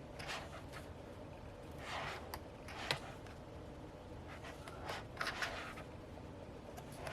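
Pages of a paper photo book being turned by hand: several short swishes of paper, with a sharp tick about three seconds in.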